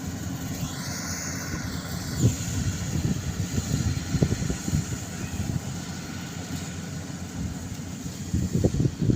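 Heavy rice-harvesting machinery running steadily, with wind gusting against the microphone in irregular low buffets.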